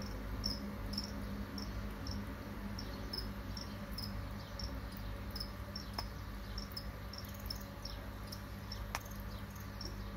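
Captive crickets chirping in a glass terrarium: short, high chirps repeating roughly twice a second, over a low steady hum, with a couple of faint ticks.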